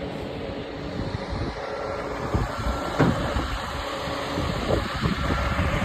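Dump truck on the move, its engine running with a steady low rumble of engine and road noise, broken by a few sharp knocks and rattles, the loudest about three seconds in.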